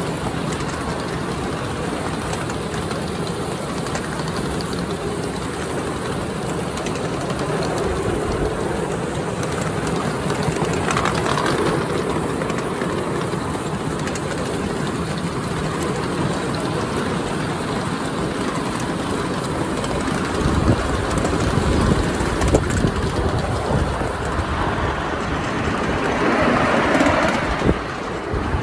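Ride-on scale live-steam 4-6-2 Pacific locomotive and its riding cars running along a miniature railway track, heard from the riding car: a steady rolling rumble of small wheels on rail with scattered clicks and knocks. Gusty rumble, like wind on the microphone, builds in the second half.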